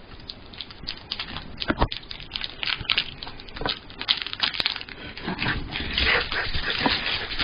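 A dog eating soft cake from a plate: quick wet licking and chewing sounds with small knocks against the plate, getting busier and louder over the last couple of seconds.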